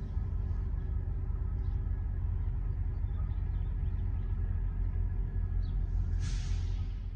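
CSX GP38-3 diesel locomotives running, heard as a steady low rumble with faint steady engine tones over it. A brief hiss rises about six seconds in.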